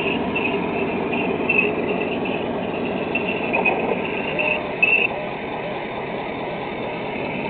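Tamiya 1/16 radio-controlled model tanks driving on dirt: a steady mechanical running noise from their drives and tracks, with their engine-sound effects. High squeaks come and go through the first five seconds or so, then stop.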